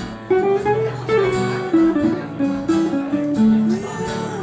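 Guitar instrumental break: a lead guitar picks a single-note melody over strummed chords.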